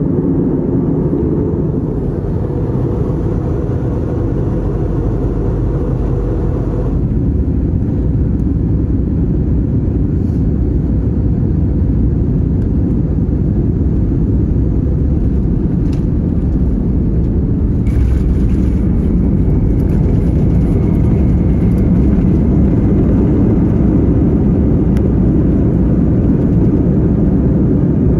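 Airbus A321 cabin noise during landing and rollout: a loud, steady rumble of the jet engines and the wheels on the runway as the airliner slows. A brighter hiss comes in suddenly about two-thirds of the way through.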